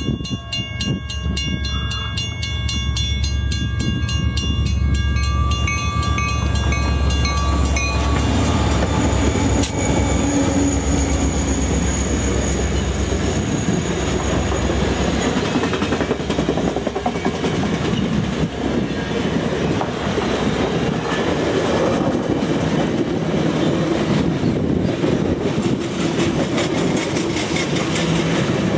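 Level-crossing warning bell ringing steadily over the deep rumble of the Rocky Mountaineer passenger train's diesel locomotives. The bell is then drowned out by the steady rolling noise of the passenger coaches passing close by, their wheels going clickety-clack over the rail joints.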